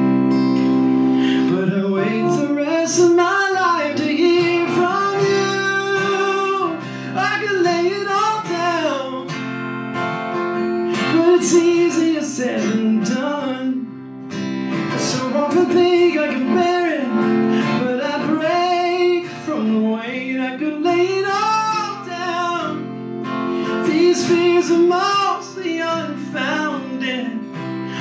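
A song sung to acoustic guitar accompaniment, the voice rising and falling in sung phrases over the guitar chords.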